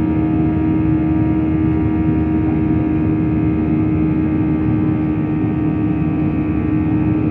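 Airliner's jet engines and rushing air heard inside the cabin during the climb after takeoff: a loud, steady drone with one strong hum and several fainter steady tones above it.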